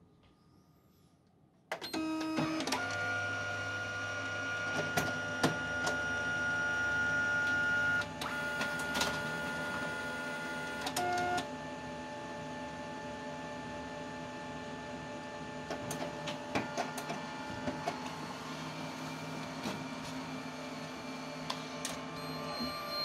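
Office multifunction copier starting up about two seconds in and running through a copy: steady motor whines with a low hum, scattered clicks and clunks, loudest for the first several seconds, then settling a little quieter while the page is printed and fed out.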